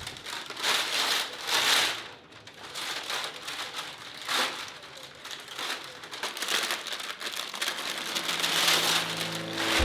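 Rain falling: a steady hissing patter that swells and eases several times.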